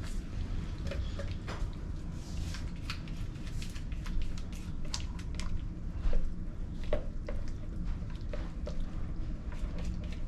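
Chicken salad dressed with mayonnaise being spooned into a small plastic Tupperware container: soft wet squishes with scattered light clicks and taps of the spoon against the bowl and container.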